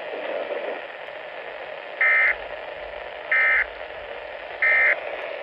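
NOAA Weather Radio playing the end-of-message SAME data signal that closes a severe thunderstorm warning: three short buzzy data bursts about 1.3 seconds apart over steady radio hiss.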